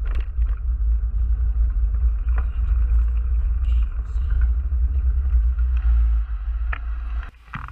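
Low rumble of wind and road noise on a camera mounted on the front of a moving bicycle, with a few light ticks and rattles. The rumble drops away sharply near the end as the bike slows at a junction.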